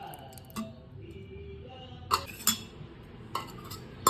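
Dishes and cutlery clinking as they are handled, several separate sharp clinks, the loudest about two and two and a half seconds in.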